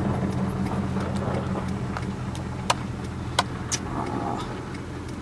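Car engine idling steadily, heard from inside the cabin, with three small sharp clicks between about two and a half and four seconds in.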